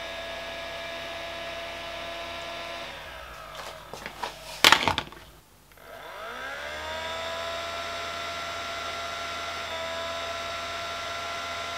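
Opened budget LCD projector running, its cooling fan giving a steady whine. The fan was re-glued clear of the case, so it runs without the rubbing noise it had before. About halfway the whine sags, a few sharp knocks sound and it briefly drops away, then the fan spins back up with a rising whine and settles steady.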